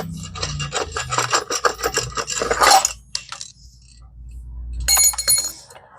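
Metal tools and parts on a mini bike's rear wheel clicking, clinking and scraping in a quick run for about three seconds, then a short ringing metallic clatter near the end.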